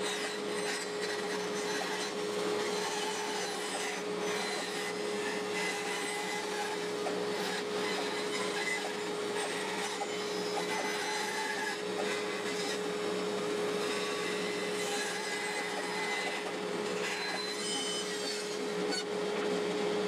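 Bandsaw running and cutting a circle out of a wooden board: a steady hum with the hiss of the blade through the wood, stopping abruptly at the end.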